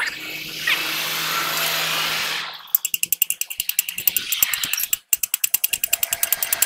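A steady hiss, then from about two and a half seconds in a power tool hammering in a fast, even rhythm of roughly nine or ten strikes a second. It cuts out for an instant about five seconds in.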